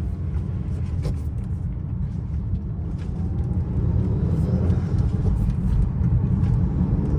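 Cabin sound of a 2019 Honda Accord 2.0T's turbocharged four-cylinder engine, fitted with a PRL high-volume intake, running while driving under a steady low rumble of engine and road noise. The sound grows louder about four seconds in.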